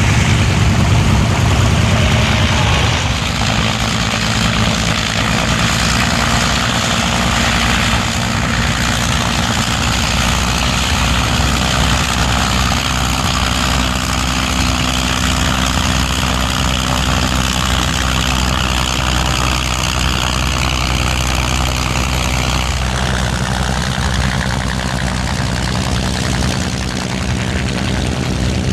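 Piston-engined propeller aircraft running with a loud, steady drone. The engine note drops slightly about three quarters of the way through.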